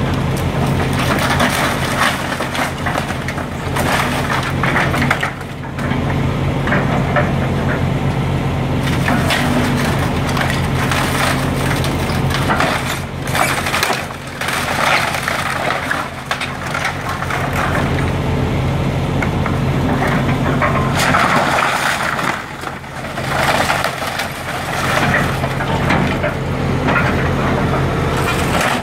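Volvo EC160B excavator crushing and tearing through a house's wooden framing and roof: continual cracking, splintering and crunching of wood and debris over its diesel engine running steadily underneath.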